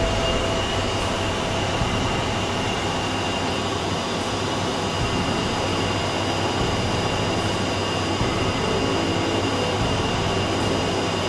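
Steady in-flight cockpit noise of an ATR 72: its twin turboprop engines and propellers running with airflow, and a few steady high whines on top.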